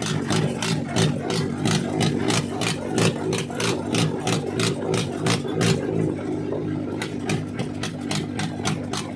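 Mahindra tractor diesel engine running without a silencer, idling with loud, sharp, open exhaust beats at about four a second.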